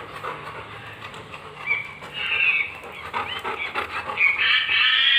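Recorded monkey screeches played through an Amazon Echo smart speaker: high, wavering calls that start about two seconds in and are loudest near the end.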